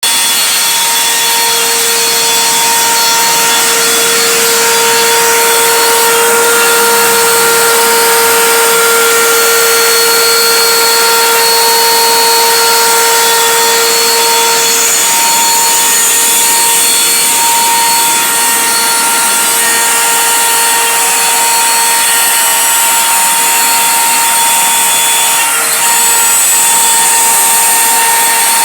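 CNC router spindle running with its bit cutting through 18 mm MDF: a steady high whine over the rasp of the cut, the whine easing a little about halfway through.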